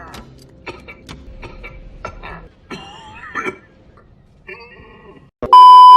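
General Grievous's cough, coughing like he's coughing up a furball. Near the end a loud, steady beep tone cuts in for about a second.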